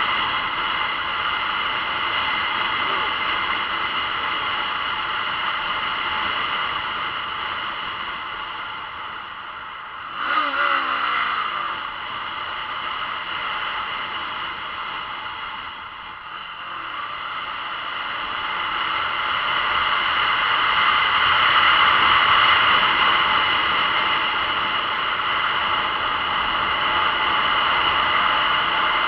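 Steady wind and road rush on a helmet-mounted camera as a motorcycle rides along at speed, swelling louder about two-thirds of the way through. A brief sound with a wavering, sliding pitch cuts in about ten seconds in.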